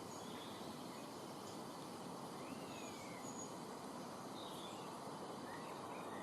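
Wild birds giving a few faint, scattered chirps and short whistles, one of them a falling whistle about two and a half seconds in, over a steady background hiss.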